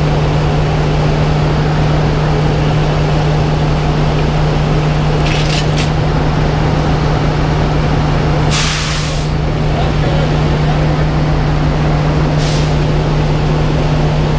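Heavy diesel tow truck's engine running steadily, with three short hisses of air about five, nine and twelve seconds in; the middle hiss is the loudest.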